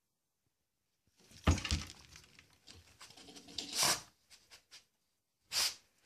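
Yorkshire terrier's paws scraping and bumping against the glass front and cabinet of a terrarium, in irregular bouts: a loud knock and scrape about a second and a half in, another near four seconds, and a short one near the end.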